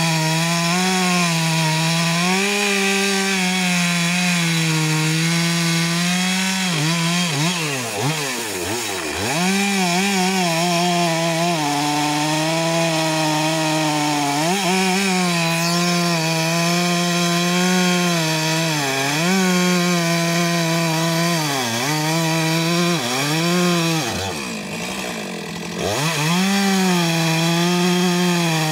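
Stihl MS 462 two-stroke chainsaw running at high revs while cutting through a thick walnut trunk. The engine pitch drops and climbs again several times, with the longest and quietest dip about three quarters of the way through.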